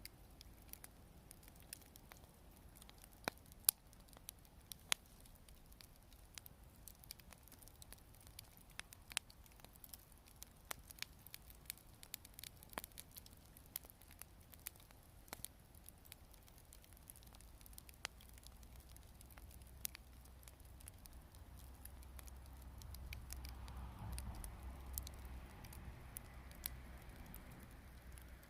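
Wood campfire crackling softly, with sharp, irregular pops and snaps. A low rumble swells for a few seconds near the end.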